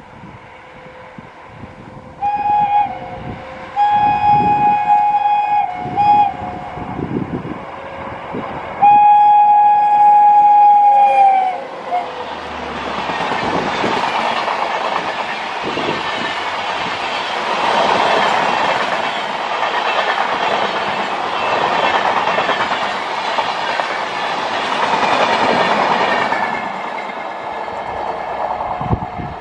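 WAP-7 electric locomotive's air horn sounding several short blasts, then a long blast of about three seconds whose pitch sags as it cuts off. Then a long passenger train rushes past at speed, its wheels clattering over the rails in a pulsing rumble that fades near the end.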